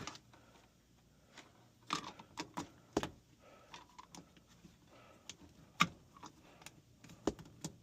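Scattered light clicks and knocks of objects being handled, a dozen or so irregular strikes, with the sharpest ones about three seconds and six seconds in.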